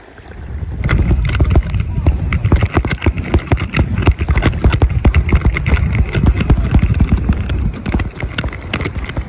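Quick, regular footsteps splashing through shallow water on wet sand, with wind rumbling on the microphone.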